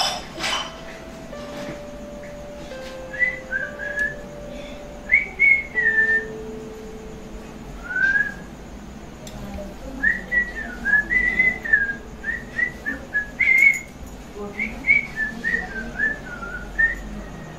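A man whistling a tune in short phrases of rising and falling notes, with pauses between the phrases.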